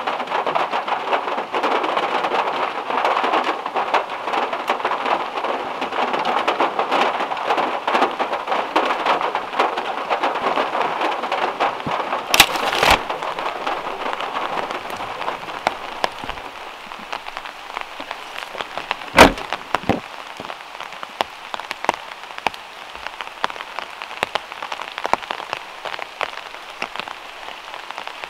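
Heavy rain on a VW Beetle's metal roof, a dense patter of drops that eases to a lighter patter about halfway through. Two loud sharp knocks stand out, one about twelve seconds in and another about seven seconds later.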